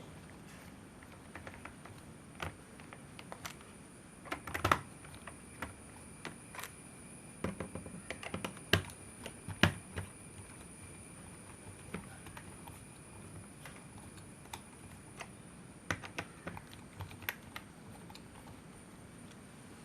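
Irregular small clicks and taps of hands working on a laptop, coming singly and in short quick clusters.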